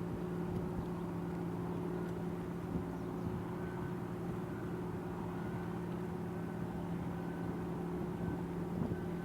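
Steady low mechanical drone of a container ship's engines, with two held hum tones and no change in pitch.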